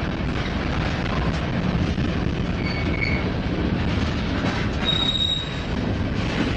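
Freight cars rolling past close by, a steady rumble of wheels on rail. Brief high-pitched wheel squeals cut in twice, about three seconds in and again about five seconds in.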